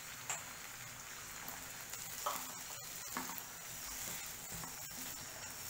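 Onions, peas and freshly added chopped tomatoes sizzling steadily in oil and butter in a nonstick frying pan, with a spatula stirring and scraping through them.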